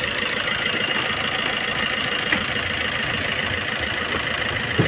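Maruti Suzuki Swift's 1.3-litre four-cylinder diesel engine idling steadily, with no rattle or knock from the timing chain: a new timing chain and tensioner have cured the earlier knocking.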